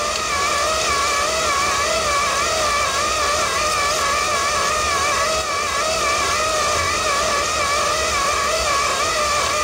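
Motors of a Bright Tech Developments power roller display (bus destination number blind) running, winding the printed blind across its rollers. A steady whine that wavers slightly in pitch.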